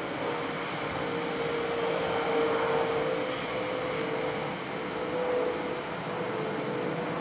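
DRS Class 66 diesel-electric freight locomotive, with a two-stroke V12 engine, approaching: a steady engine drone with a held whining tone.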